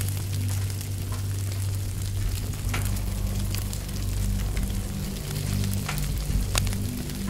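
Crackling, sizzling fire sound with scattered sharp pops over low droning music. The drone's notes shift about three seconds in.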